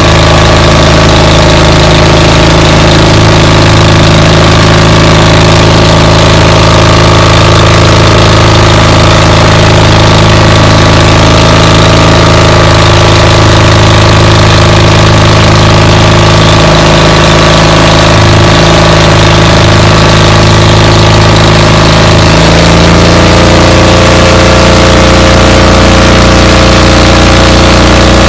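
An engine running steadily and loudly, close to the microphone, its pitch shifting slightly about 23 seconds in.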